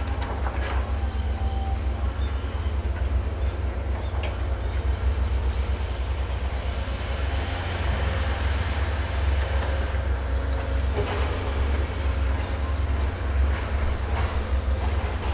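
Caterpillar 320D hydraulic excavator at work, its six-cylinder diesel engine giving a steady low rumble as it digs soil and swings a load into a crawler dump carrier.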